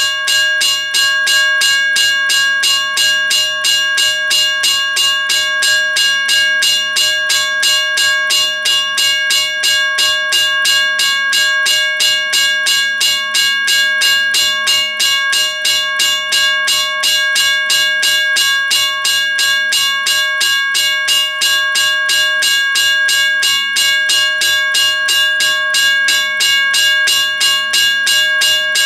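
Western Railroad Supply Co. WRRS 1203 mechanical railroad crossing bell ringing continuously, its hammer striking the gong in a rapid, even rhythm over a sustained ringing tone.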